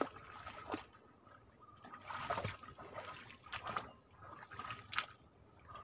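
A series of water splashes and sloshes in a shallow swamp as a hooked snakehead fish is pulled from the water and the angler wades.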